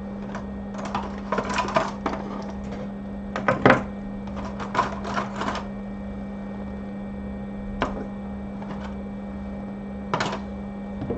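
Small sharp clicks and taps in quick clusters, the loudest a little under four seconds in, from metal tweezers handling a small chip on a circuit board, over a steady low electrical hum.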